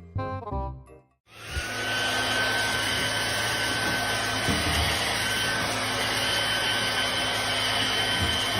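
A bit of music for about a second, then after a brief break a small motor starts up and runs steadily, a rushing whir with a thin high whine over it.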